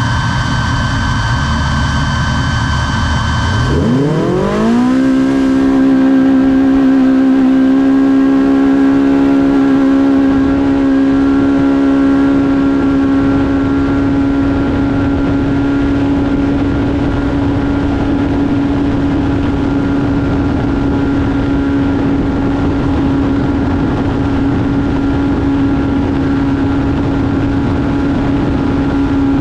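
Polaris Pro R side-by-side's four-cylinder engine heard onboard. It rumbles low for about four seconds, then revs up over about a second and holds a steady high pitch under full throttle, over wind and tyre noise.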